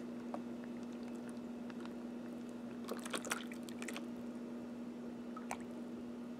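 Melted candle wax poured from a zip-top plastic bag into a plastic container: a faint pour and squish of thick liquid, with a few soft crackles around three seconds in and one more near the end.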